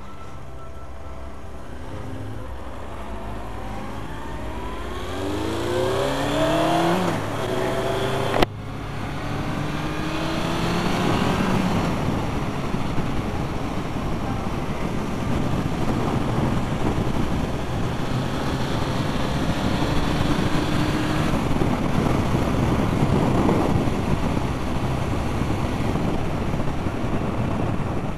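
Honda Fireblade's inline-four engine idling, then revving up twice in rising sweeps as the bike pulls away and accelerates through the gears, with a sharp knock about eight seconds in between them. It then runs steadily at road speed under a rush of wind noise.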